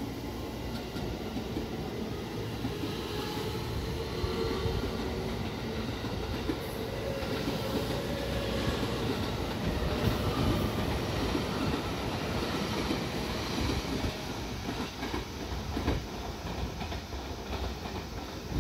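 JR West electric train leaving the station: steady running noise of wheels on rails, with some clickety-clack over the joints and a motor whine in the first half.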